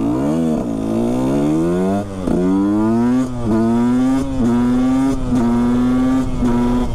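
KTM 125 SX two-stroke single-cylinder engine accelerating hard under way, which rings out like singing. Its revs climb, drop sharply about two seconds in at an upshift, climb again, then hold a high, steady note with a few brief dips.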